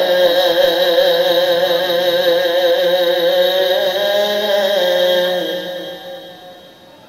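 Male voice reciting an Urdu naat, holding one long sung note with a wavering vibrato through a microphone with an echo effect. About five seconds in the note fades away.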